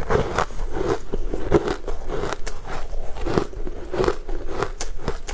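Close-miked chewing of crumb-coated sweet cake: a steady run of crackly, crunchy mouth sounds with many quick clicks.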